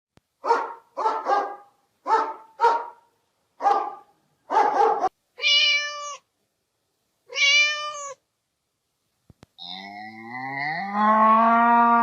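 A run of animal calls: about seven short harsh calls, then two drawn-out cat meows, then, about ten seconds in, a cow mooing in one long low call that rises in pitch.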